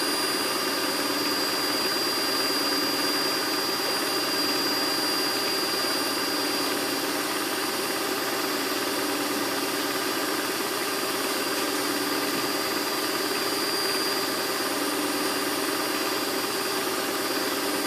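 Electric mixer motor running steadily at a constant speed, beating cake batter.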